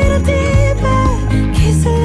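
Background pop song with a female singing voice holding a melody over a steady beat and bass.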